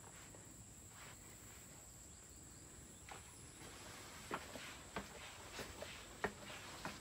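Footsteps on concrete steps: a few separate taps and scuffs about a second apart, louder in the second half.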